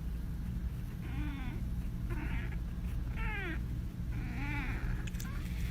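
A cat meowing four times, short calls that rise and fall in pitch, about a second apart.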